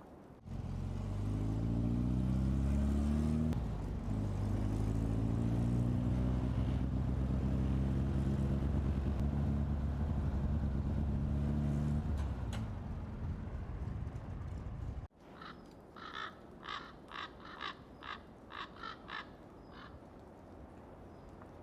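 A vehicle engine running steadily while driving, with a step in pitch a few seconds in, dying away past the middle. After an abrupt cut, boots crunch through snow, about nine steps in a steady rhythm.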